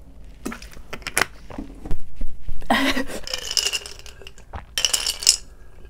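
Drinking from a large plastic water bottle: a few sharp clicks, then two bursts of crackling plastic and swallowing, about three seconds in and again near the end.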